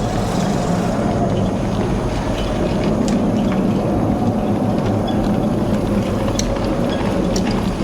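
Steady rumbling ride noise of a road bike rolling slowly over a damp, muddy trail surface, with scattered small clicks and ticks.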